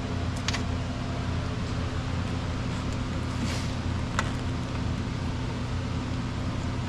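Steady low mechanical hum, with a few light clicks from hand tools working on the fuel line clamps, about half a second in and again around four seconds in.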